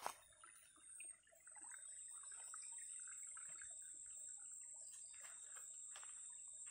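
Dry grass stems and leaves rustling and snapping as someone pushes through undergrowth. Over it, a steady high-pitched insect call sets in about one and a half seconds in.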